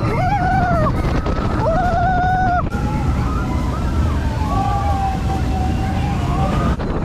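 A loud, steady low rumble, with several drawn-out high voices rising and falling over it, each about a second long.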